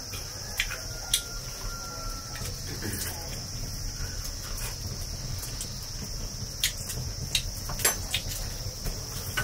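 Steady high-pitched insect chirring, with a few sharp clicks scattered through it.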